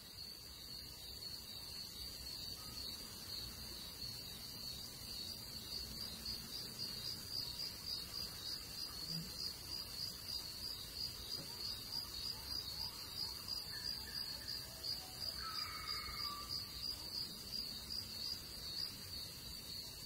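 Insects chirring in one continuous high-pitched trill that pulses about twice a second, a cricket-like nature ambience.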